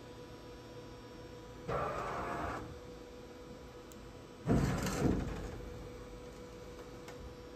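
Hardinge GX480 vertical machining center, powered on, with a steady electrical hum. About two seconds in there is a short mechanical whir, and about four and a half seconds in a louder sliding rumble with two knocks that fades away.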